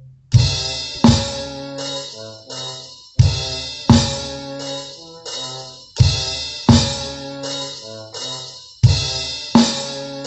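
Music: a drum kit with heavy paired hits of bass drum and cymbal coming about every three seconds, over sustained bass and keyboard notes.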